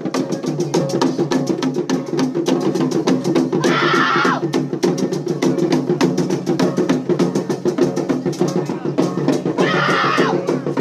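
Cakalele war-dance music: fast, steady drumming on tifa drums, about six strokes a second, over ringing gong tones. Two short, loud shouts break in, about four seconds in and again near the end.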